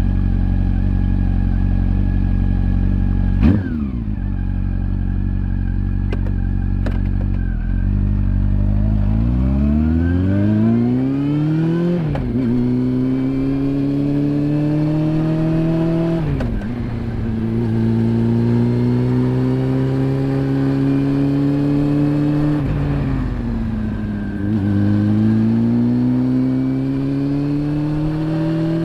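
Honda CB400 Super Four's inline-four engine and exhaust, running at a steady low pitch with a sharp click about three seconds in, then pulling away with the revs rising and dropping sharply at each upshift, twice. Later the revs fall away briefly when the throttle eases off, then climb again.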